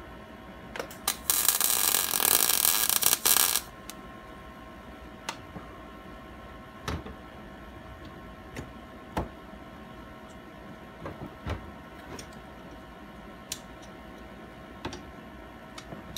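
Arc welding a steel bolt onto a broken tensioner rod: two brief arc strikes, then about two and a half seconds of steady welding crackle that stops abruptly. After that come scattered light clicks and knocks of the metal parts and tools being handled.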